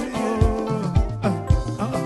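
Congolese band playing an instrumental passage: electric guitars, bass and keyboard over a steady kick-drum beat about twice a second.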